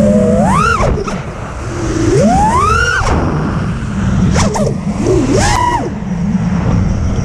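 6S FPV quadcopter's motors whining, the pitch sweeping up and falling back three times as the throttle is punched and cut, over a steady low rumble.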